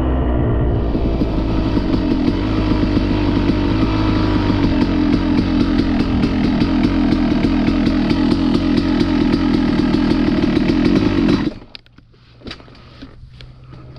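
Yamaha YZ250 single-cylinder two-stroke dirt bike engine running hard at a fairly steady pitch. About eleven and a half seconds in, the engine sound stops abruptly, leaving faint crackling and clicks.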